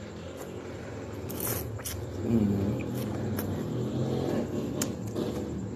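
Person chewing a mouthful of rice noodles, with a few sharp clicks of a metal fork against a ceramic bowl. A steady low hum runs underneath.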